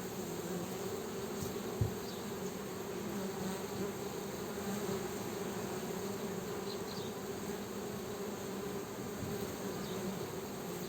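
Honey bees buzzing: a steady, continuous drone. A brief low thump sounds about two seconds in.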